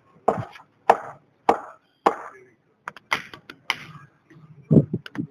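Repeated hammer blows, about one every 0.6 seconds, each a sharp crack with a short ring, with a few duller, heavier thuds near the end.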